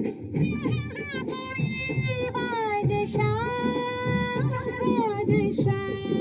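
A song with a sung vocal line over a rhythmic instrumental accompaniment, with long held, sliding notes.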